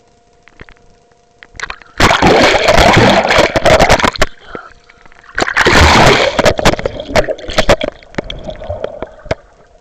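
Water splashing and gurgling right against a submerged camera as it breaks the surface and goes back under. Two loud rushes of splashing start suddenly, about two seconds in and again about five and a half seconds in, with crackling drips and bubbling between and after.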